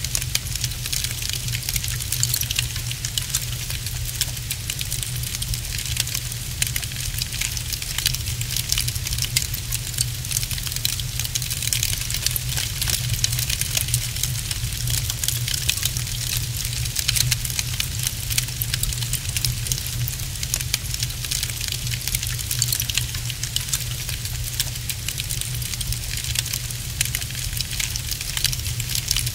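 Wood fire crackling in a fireplace: a constant dense patter of small pops and snaps over a steady low rumble.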